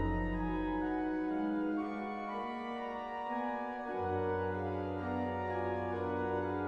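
Pipe organ playing sustained chords. A deep pedal note dies away about a second in, and a new low pedal note enters at about four seconds under the held upper voices.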